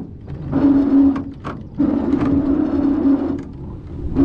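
Electric trolling motor on a jon boat running in two short bursts, a steady hum with a hiss over it, the first about a second long and the second about a second and a half.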